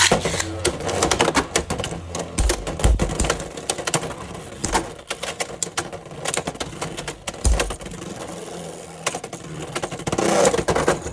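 Beyblade X spinning tops battling in a plastic stadium: a rapid, irregular clatter of clicks and clacks as they collide and scrape, with louder hits now and then. It cuts off suddenly near the end.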